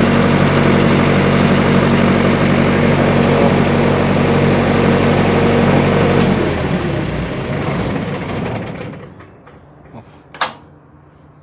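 Diesel generator engine running steadily, then switched off about six seconds in and running down to a stop over the next couple of seconds. A single sharp click follows near the end.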